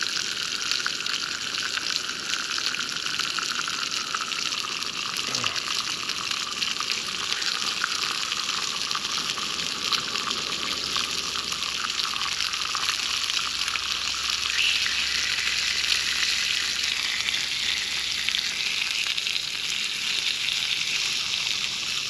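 Hot cooking grease sizzling in a small skillet on a camp stove: a steady frying hiss with fine crackling throughout.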